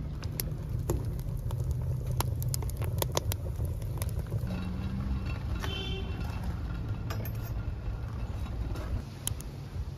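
Wood fire in a mud stove crackling, with sharp pops scattered through a steady low rumble.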